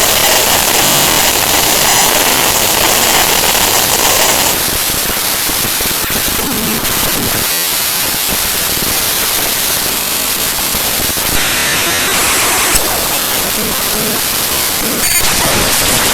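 The binary data of the Windows XP Service Pack 2 resource file xpsp2res.dll played as raw unsigned 8-bit mono audio at 32 kHz: loud, harsh static-like noise. Its texture changes abruptly in blocks, about four and a half seconds in, again around twelve seconds and again near fifteen seconds.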